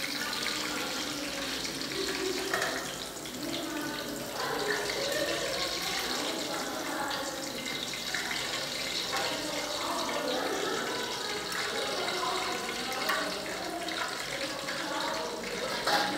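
Hot oil sizzling steadily as pieces of food deep-fry in a pan, with a few metal clinks as the slotted spoon and wire strainer lift them out.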